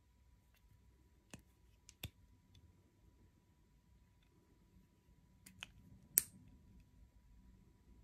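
Sharp plastic clicks from a Sharpal pocket knife sharpener being handled, its rod and parts clicking out and back in. There are a couple of clicks about a second and a half in and a cluster about five and a half to six seconds in, the last one the loudest.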